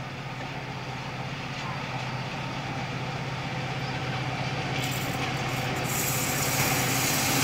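Diesel-hauled passenger train approaching: a steady engine hum that grows gradually louder, joined about five seconds in by rising hissing wheel-and-rail noise as it draws near.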